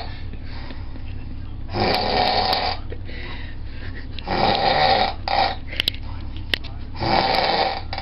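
A sleeping person snoring loudly, three snores about two and a half seconds apart, the middle one followed by a short extra snore. A few small clicks come between them, over a steady low hum.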